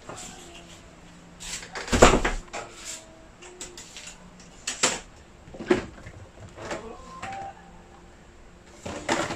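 Household handling noise: a series of separate knocks and clunks, the loudest about two seconds in.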